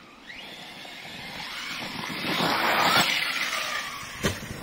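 Large-scale electric RC car accelerating: its brushless motor whines higher over a rushing drive noise that swells loudest a little past the middle and then fades. A single sharp knock comes near the end.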